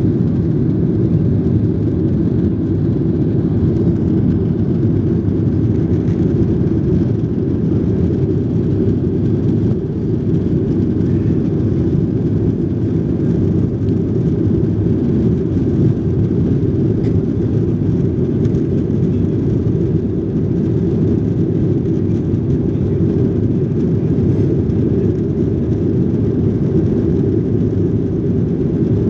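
Steady low roar of a Boeing jet airliner's engines and rushing air, heard from inside the passenger cabin as the aircraft climbs after takeoff.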